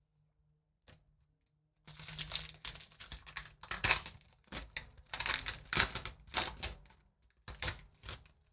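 Foil trading-card booster pack wrapper crinkling and tearing open, in a run of crackly bursts starting about two seconds in. A single light tap comes about a second in.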